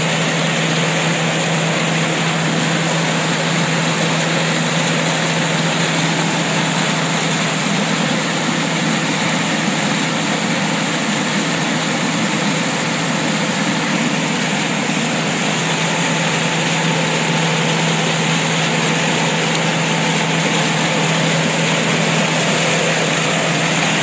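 Small micro-hydro water turbine and generator running with a steady hum, over the rush of water pouring out of its outlet channel.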